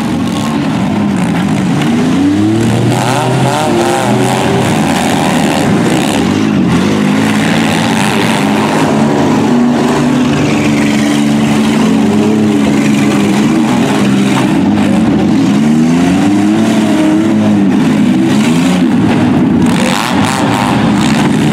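Several minivan engines in a demolition derby heat revving hard, their pitches rising and falling over one another as the vans reverse and ram each other, with the odd sharp bang of a collision.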